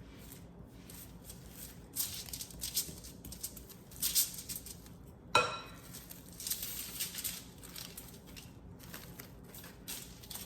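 Crinkly wrapping being handled and rustled in irregular bursts while a portion of lazy cake mixture is wrapped and rolled into a log, with one sharp click and a brief ring about five seconds in.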